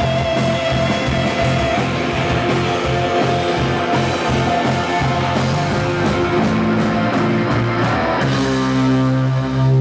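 Live blues-rock band playing an instrumental passage: guitar over drum kit and bass. A held note wavers with vibrato at the start, and about eight seconds in the band moves into a sustained chord.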